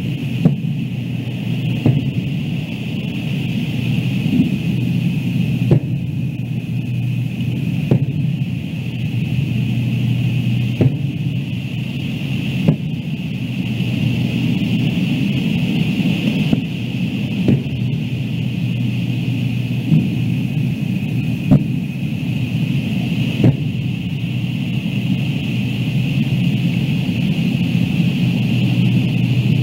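Distant aerial fireworks shells bursting, a sharp bang every one to three seconds, about a dozen in all, over a steady low rumble and hiss. The bangs stop a few seconds before the end.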